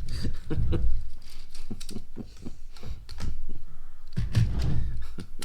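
Small plastic Lego pieces clicking and clattering as they are handled and pressed together. The clicks are irregular and come in quick runs, with heavier knocks of parts against the table around the first second and again near the end.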